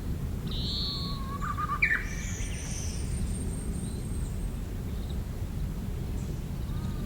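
A songbird sings one short phrase about a second in: a held low note that climbs into a sharp high note, with fainter high calls after it. The recordist takes it for a Japanese bush warbler's "hō-hokekyo" song but is unsure, suspecting it could be a mimicking Chinese hwamei. A steady low background rumble runs underneath.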